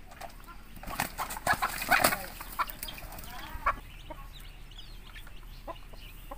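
Native chickens clucking and squawking as they are caught by hand, with a loud flurry of scuffling and wing-flapping about one to two seconds in and a squawk a little later.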